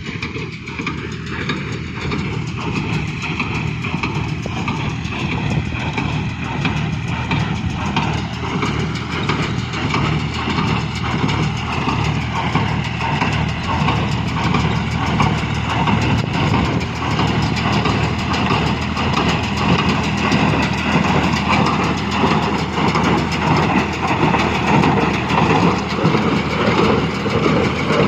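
John Deere 5105 tractor's diesel engine running while the New Holland BC5060 square baler it drives clatters continuously, growing gradually louder.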